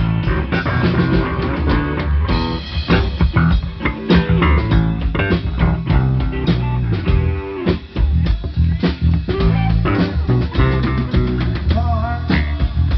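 Funk-rock band playing live: electric guitar over bass guitar and drum kit in an instrumental passage without vocals, with a brief drop in loudness about eight seconds in.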